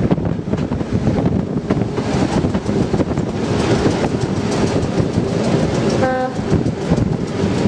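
Class 207 'Thumper' diesel-electric multiple unit running, its English Electric four-cylinder diesel engine and wheels on the rails making a steady noise. A short single-note horn toot sounds about six seconds in.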